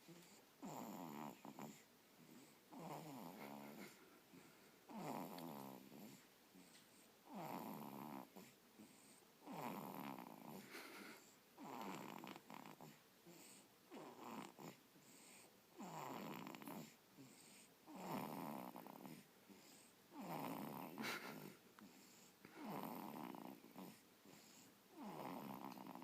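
Snoring in a steady rhythm, about one snore every two seconds.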